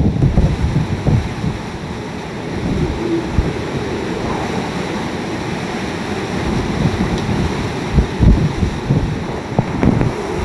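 Hurricane-force wind with heavy rain: a steady rushing noise, with gusts buffeting the microphone in low rumbles near the start and again near the end.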